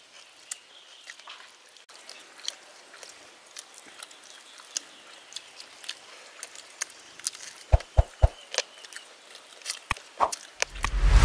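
Eating sounds: chewing and lip-smacking on grilled rabbit meat eaten by hand, a scatter of small sharp clicks. Three low thumps come about eight seconds in, and a loud low rumble just before the end.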